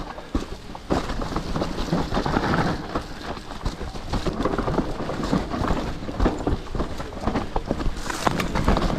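Trek Slash mountain bike riding down a dirt trail: tyres rumbling over the ground, with many quick knocks and rattles from the bike over bumps.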